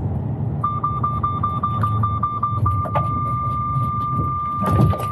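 Mercedes-Benz Actros 4's Active Brake Assist collision warning sounding over the truck's engine and road noise. It is a rapid run of high beeps, about five a second, that turns into one steady tone about two and a half seconds in, warning of an imminent collision as the system brakes the truck by itself. A short rush of noise comes near the end.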